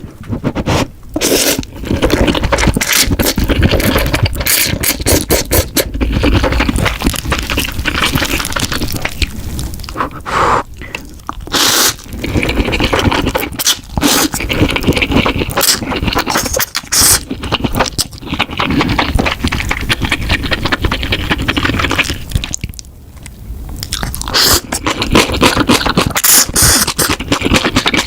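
Close-miked eating sounds of spicy noodles being slurped and chewed, with dense wet clicks and loud noisy slurps and a few brief pauses.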